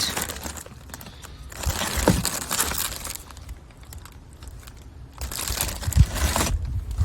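Plastic packaging crinkling and rustling as wrapped kayak accessories are handled and unwrapped, in two bouts, with a soft knock in each.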